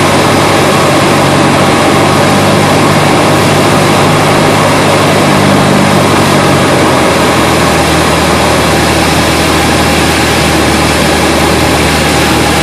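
Cessna 172's piston engine and propeller heard from inside the cockpit on the landing approach: a loud steady drone over rushing air. About seven seconds in, the engine note drops lower as power is pulled back over the runway.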